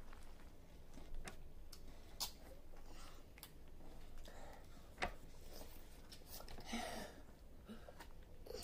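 Faint, scattered wet clicks and smacks of hands digging into the flesh of a halved watermelon and mouths eating it, a few sharp ticks a second or so apart.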